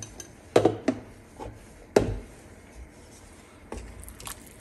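A few sharp knocks and clatters of kitchen utensils being handled, the loudest about half a second and two seconds in. Near the end a wooden spoon goes into the clay pot of soy-and-vegetable stew, with lighter scraping and rustling.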